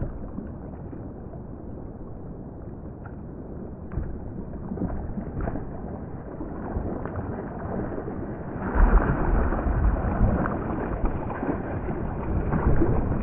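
River water sloshing and gurgling around a whitewater kayak, with a few small splashes. About nine seconds in it grows louder and rougher, with low rumbling in the water noise.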